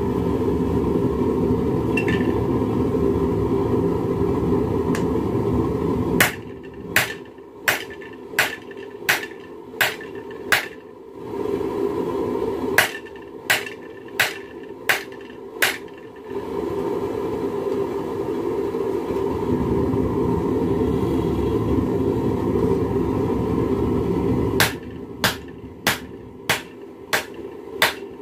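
Hand-forging a red-hot railroad spike on an anvil: three runs of sharp hammer blows at about two a second, near 6 s, 13 s and 25 s. Between the runs a loud steady roar fills the background.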